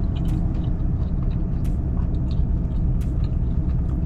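Chewing and short smacking clicks of someone eating a fritter, over a steady low rumble inside a parked pickup truck's cab.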